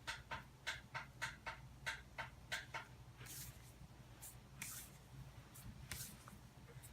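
Hair rustling and rubbing as a dreadlock is worked between the hands: quick back-and-forth strokes at about three a second, then slower, scattered rubs, with a faint low hum underneath.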